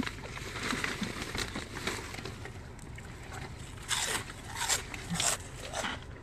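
Plastic bags and packaging rustling and crinkling as a purse and a snack bag are rummaged through, with a few louder crinkles in the second half.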